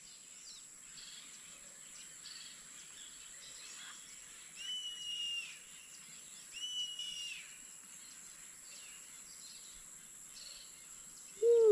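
Yellow-headed caracara calling twice, about two seconds apart. Each call is a drawn-out, high, steady whistled scream lasting just under a second, over a steady high hiss of insects.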